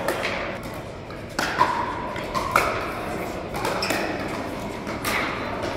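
Pickleball paddles striking a hard plastic ball: a string of sharp pops, about seven, echoing in a large sports hall.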